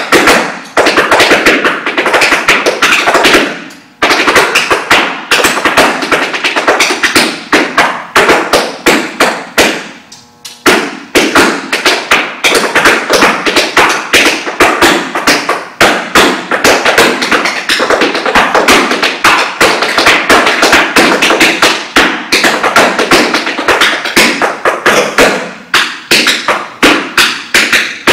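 Tap shoes striking a wooden floor in fast, dense rhythms: a solo tap dance with no music. There are brief pauses about 4 seconds and 10 seconds in.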